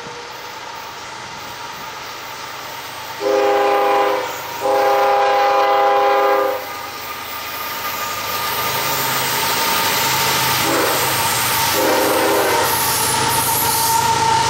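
Diesel freight locomotive's air horn sounding in two long, one short, one long blasts, the pattern of a grade-crossing signal, with the last two fainter. Under the horn, the rumble of the approaching train's engines and wheels grows steadily louder.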